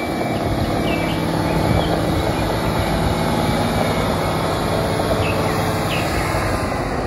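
Heavy box truck's engine running steadily as the truck drives slowly across a gravel lot, with a constant low rumble.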